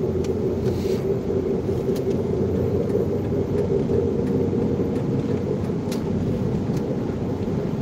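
Steady road noise inside a moving car at highway speed: tyre and engine drone with a steady low hum.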